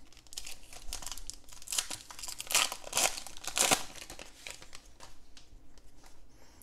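A Donruss football card pack's wrapper being crinkled and torn open by hand. It crackles in quick irregular bursts, loudest about three seconds in, then turns to quieter rustling as the wrapper is pulled off the cards.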